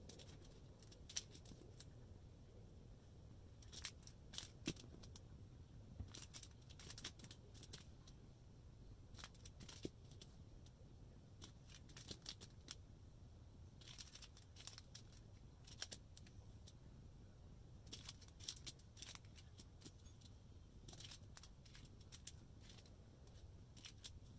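Small plastic bags of diamond-painting drills being handled and sorted, giving faint, scattered spells of crinkling and rattling clicks.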